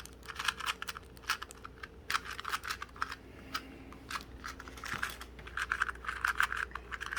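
Plastic speed cube being turned fast in the hands: quick runs of light clicking and clacking as the layers snap round, with short pauses between runs.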